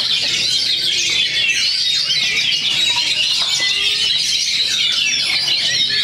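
Many oriental magpie-robins singing at once in a contest, a dense, unbroken chorus of quick overlapping whistles and chirps.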